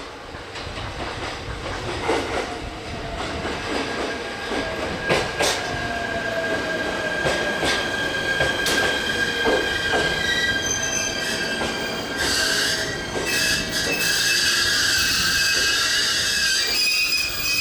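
Electric trains moving through the station tracks: wheels clicking over rail joints and points, then a high-pitched wheel squeal that builds up from about ten seconds in as the Shinano Railway 115 series train approaches, growing louder toward the end.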